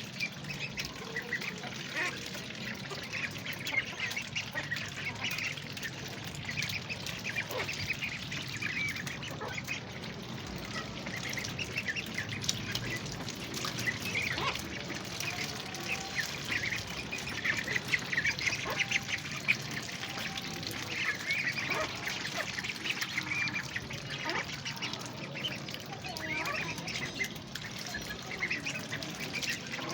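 A group of ducklings peeping continuously in many short, high calls, over a steady hiss of rain.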